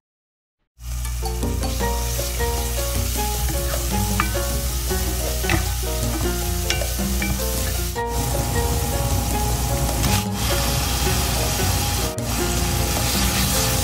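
Chopped aromatics sizzling in hot oil in an enamelled pot, stirred with a wooden spatula, starting about a second in, under light background music.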